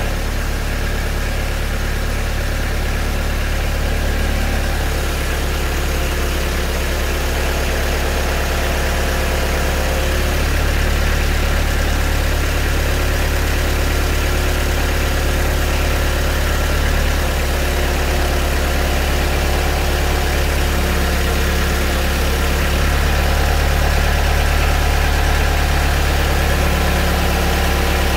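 Engine of a small loader running steadily as it carries a roof tent on its pallet forks, a little louder from about ten seconds in.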